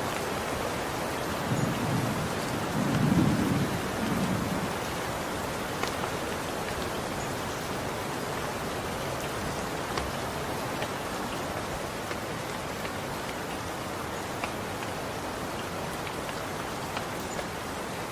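Steady rain falling, with a low rumble of distant thunder swelling and fading about two to four seconds in. Scattered drops tick sharply on a surface.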